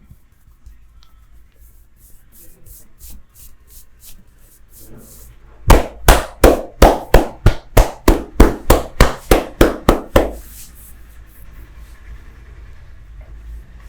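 Percussive hand massage: light, quick tapping strokes, then about a second in the middle a run of about a dozen loud, evenly spaced hand slaps, roughly three a second, lasting about four and a half seconds.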